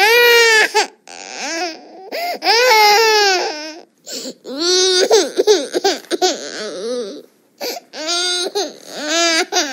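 Stock cartoon baby-crying sound effect: a baby wailing in a string of long, high cries that rise and fall, with short catches of breath between them.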